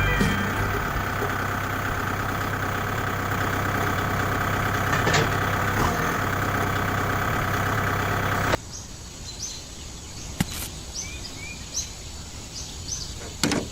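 A small engine running steadily. It cuts off abruptly about two-thirds of the way in, leaving quieter outdoor background with birds chirping repeatedly.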